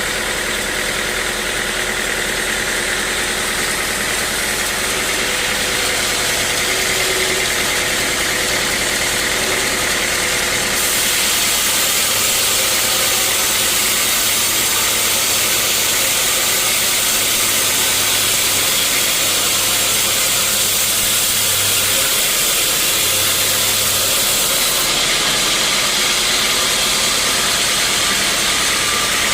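Sawmill running steadily through a teak log, a loud machine drone under a bright sawing hiss. The hiss grows stronger about eleven seconds in and eases back near the end.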